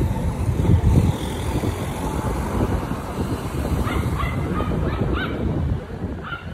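Cars driving past close by give a low rumble, with wind buffeting the microphone. From about four seconds in, a small dog yips several times in quick short calls.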